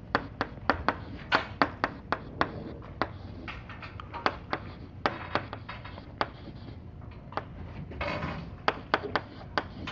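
Chalk writing on a blackboard: quick irregular taps, a few a second, as the chalk strikes the board, with short scratchy strokes in between.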